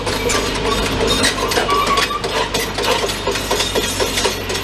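A demolition excavator's engine running, with a fast, irregular clatter of metal knocks and clanks from the machine and its bucket.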